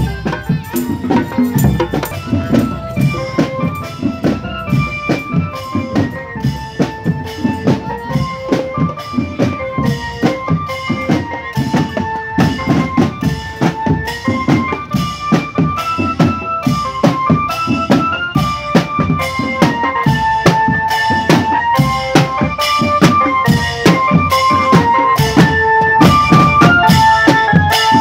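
Marching drum band playing: a steady, dense pattern on bass drums and multi-tom tenor drums, with a simple melody on a small keyboard instrument over it. It grows louder over the last few seconds as the band comes up to the microphone.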